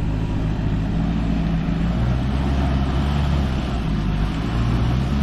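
Land Rover Defender 110's 2.4 TDCi four-cylinder diesel engine running at low revs as the truck crawls over rough ground, its note shifting a little now and then.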